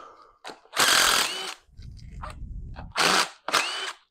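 Power tool with a socket on an extension undoing the camshaft bearing cap bolts on a Vauxhall C20LET 16-valve cylinder head. It runs in short spurts: the longest about a second in, two shorter ones near the end, with a low rumble between them.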